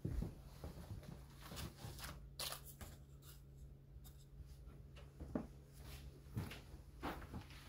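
Light scattered scratching and rustling as a cat paws at and climbs a wooden cabinet, its claws catching on the wood, on papers and on a toy, with a few sharper clicks. A low steady hum runs underneath.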